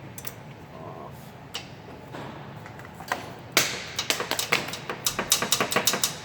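Ratcheting wrench clicking as a nut is worked loose: a few scattered clicks, then from about halfway a quick, uneven run of sharp metal clicks.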